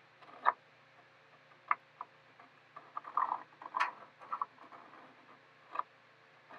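Handling sounds on a workbench: a few sharp light taps and clicks, with a short stretch of rustling and clattering about three seconds in, as wood and tools are moved and set down.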